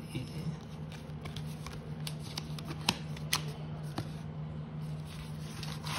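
A box of flash cards being opened and handled: scattered light clicks and a paper rustle, over a steady low hum.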